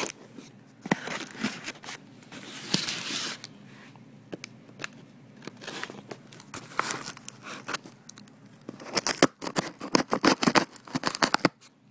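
A cardboard box being cut and torn open by hand, with scraping, ripping and rustling of cardboard. A quick run of sharp snaps and crackles comes near the end.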